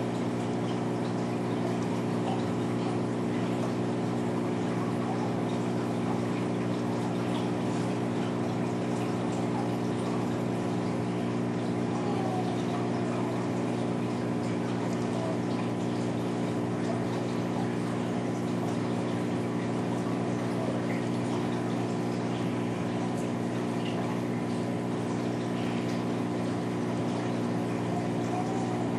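Saltwater aquarium pump humming steadily, with water circulating.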